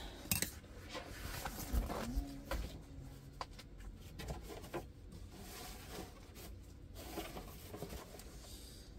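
Soft rustling, light scrapes and a few scattered taps of a plastic-film-covered diamond painting canvas being handled and cleared off a wooden table.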